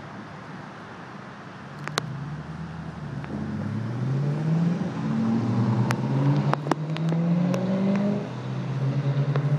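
A passing car's engine accelerating: its note rises, drops at a gear change, rises again and then holds steady, growing louder over the steady hum of traffic. A few sharp clicks sound along with it.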